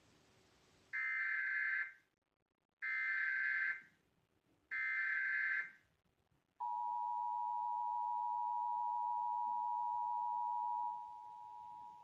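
Emergency Alert System required monthly test tones: three bursts of digital SAME header data, each about a second long, followed by the EAS two-tone attention signal sounding steadily, dropping in level near the end.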